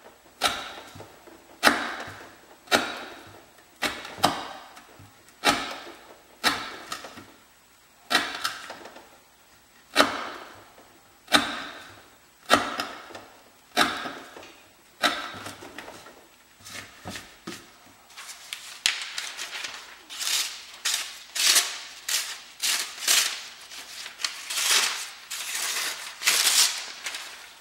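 Fixed-blade Swamp Rat Rodent Solution knife chopping through sisal rope onto a wooden board, a sharp chop about every one and a quarter seconds. About two-thirds of the way in the chops give way to dense rustling as phone-book paper is handled and sliced with the blade.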